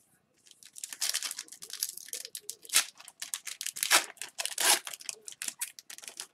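Foil wrapper of an Upper Deck hockey card pack being torn open by hand: a run of crinkling and sharp ripping crackles, loudest around four to five seconds in.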